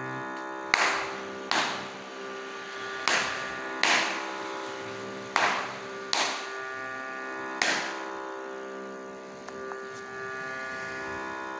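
Hand slaps keeping the Roopakam tala: seven sharp slaps in pairs, each pair repeating about every two and a quarter seconds, ending about eight seconds in, over a steady drone sounding the tonic and its fifth.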